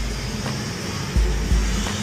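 Background music with a deep bass beat: paired bass kicks, one pair a little over a second in.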